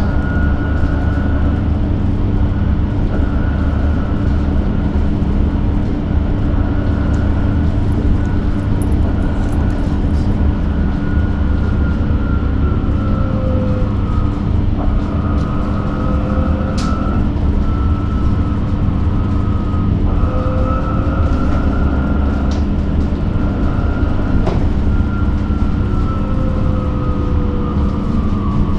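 Inside an electric bus under way: a steady low rumble with a constant hum and a thin whine that drifts slightly up and down in pitch.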